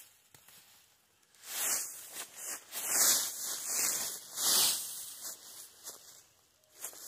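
A run of irregular hissing scrapes and rustles, starting about a second and a half in and dying away shortly before the end.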